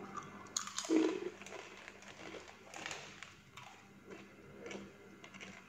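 Crunching and chewing of crispy cassava chips, in short irregular crackles, with the plastic bag crinkling as a hand reaches in for another chip.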